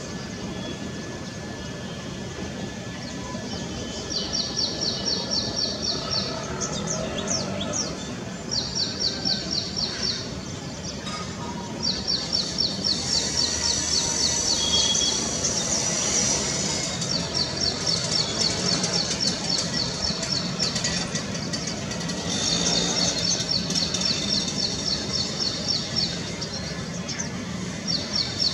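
A sunbird calling in bouts of rapid, evenly spaced high chirps, each bout lasting a few seconds and repeated six times, over a steady hiss of outdoor background noise.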